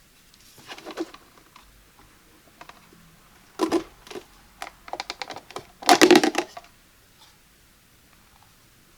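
Clusters of sharp plastic clicks and rattles from handling a new drip coffee maker and its parts. There is a quick run of clicks about five seconds in and the loudest rattle just after six seconds, with quiet gaps between.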